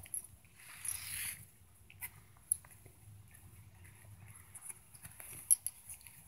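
Two-week-old puppies stirring in a pile, with faint shuffling and small squeaks and a few light clicks.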